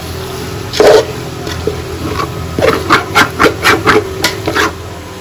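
Metal spatula scraping and stirring chicken and chopped vegetables in an aluminium pot: one stroke about a second in, then a quick run of about seven strokes in the second half.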